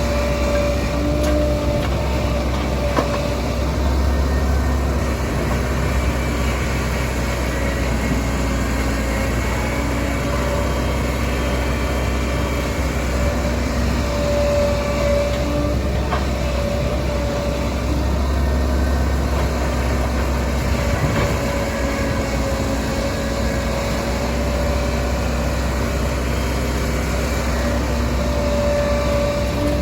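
Heavy diesel construction machinery running steadily, a deep engine rumble with a high whine that wavers and swells every few seconds.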